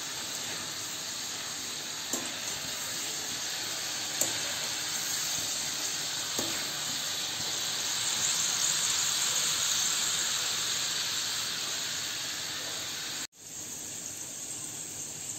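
Soaked chana dal deep-frying in hot oil: a steady sizzle with a few light clicks, the oil bubbling hard because the wet dal still holds water. After a sudden break near the end the sizzle goes on more quietly.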